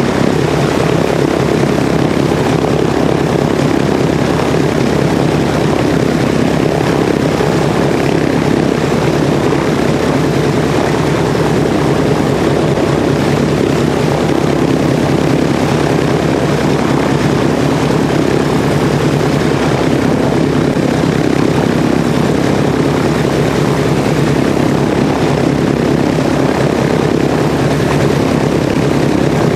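Grumman TBM-3E Avenger's Wright R-2600 fourteen-cylinder twin-row radial engine running steadily at low power on the ground, propeller turning, with a dense rapid firing beat that holds an even pitch and level throughout.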